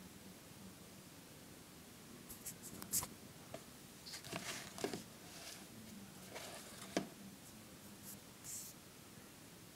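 Plastic DVD cases on a shelf being handled: scattered clicks, taps and some scraping as a hand touches and pushes along the row, with a sharp click near three seconds in and another near seven.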